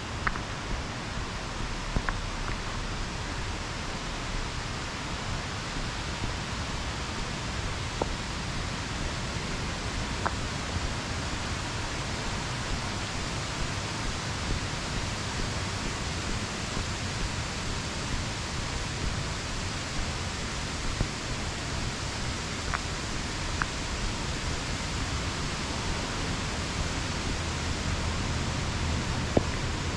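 Steady rushing noise, heaviest at the low end, with a few faint clicks.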